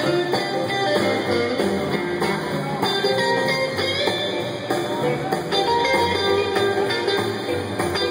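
Live blues band playing, with electric guitar to the fore.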